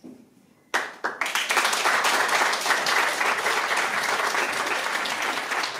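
Audience applauding, starting suddenly under a second in after a brief hush and carrying on at a steady level.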